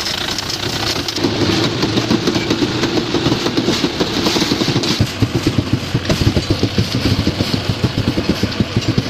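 Mahindra Yuvo tractor's diesel engine running under way, with a fast, even chugging beat that grows stronger about halfway through.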